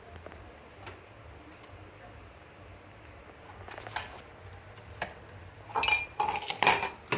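A few faint clicks, then a quick run of loud clinks and clatter near the end as the blender's glass jar and parts are handled and set in place on its base.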